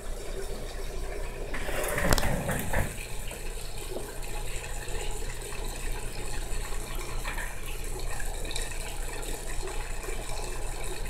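Aquarium water trickling and splashing steadily over a low hum, with a brief louder knock-and-splash about two seconds in.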